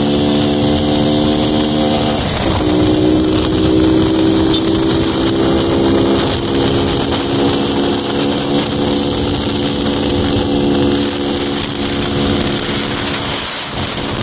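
Honda Pop 110i motorcycle's small single-cylinder engine running steadily under throttle while riding, over a rush of wind noise. About two seconds in the engine note dips briefly, then holds steady.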